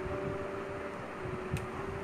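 Quiet background music of long held notes over a steady hiss, with one faint click about one and a half seconds in.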